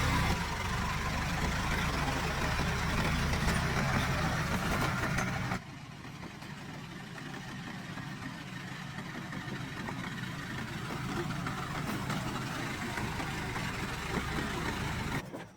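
A vehicle engine idling steadily. About five and a half seconds in it cuts abruptly to a quieter steady running sound, which stops suddenly near the end.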